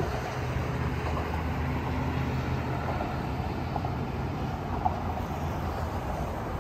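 Steady low running noise of a moving vehicle, a continuous hum with rumble under it.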